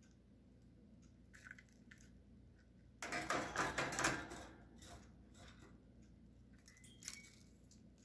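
Budgie scuffling in a plastic nest tray, knocking plastic dummy eggs and seed about: scattered small clicks, with a loud clattering scrabble about three seconds in that lasts over a second.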